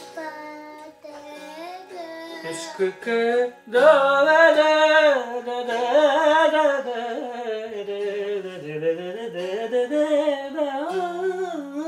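A man singing a Hindi song over a lightly strummed ukulele, the voice gliding through long held notes and loudest around four seconds in.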